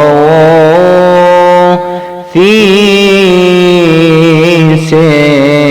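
Solo male voice chanting a Coptic liturgical hymn in long, ornamented melismatic phrases over a steady low drone, with a short breath pause about two seconds in.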